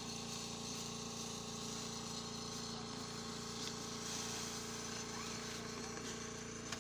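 A motor running steadily, a constant even hum that does not change pitch, with faint voices in the background.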